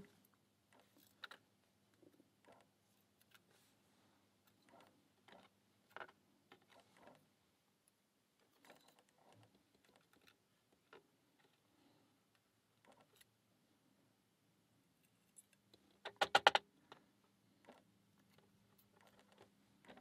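Faint, scattered metallic clicks and ticks as a small metal tool picks the springs out of an IZIS tubular lock's core, with a quick run of sharper, louder clicks about sixteen seconds in.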